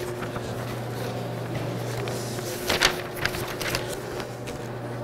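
Steady low room hum, with a few short soft rustles of sheets of paper being handled in the hands, the loudest about three seconds in.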